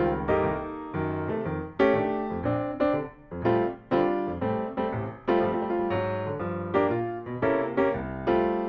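Background music: a piano or electric piano playing a bright tune of struck notes and chords.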